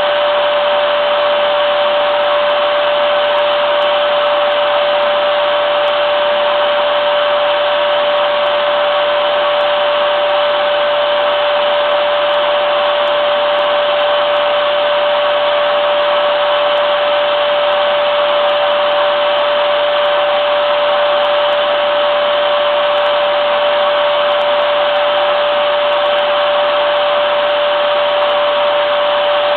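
Vacuum cleaner (hoover) motor running steadily: a continuous rushing air noise with a steady whine.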